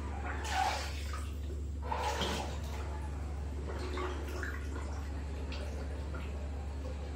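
Bathtub water sloshing and splashing as a radio-controlled scale crawler drives through it half-submerged, with bursts of splashing about half a second in, around two seconds and around four seconds, over a steady low hum.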